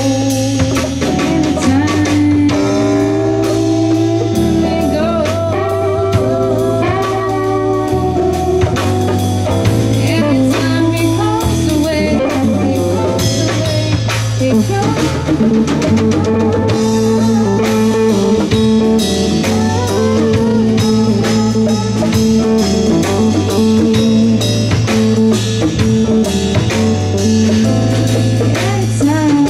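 A live band playing: drum kit, archtop electric guitar and keyboard over a steady low bass line, with a woman singing.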